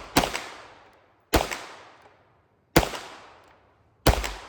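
Canik Mete SFT Pro 9mm pistol fired four times at a slow, deliberate pace, a shot about every one and a half seconds, each crack followed by a short fading echo.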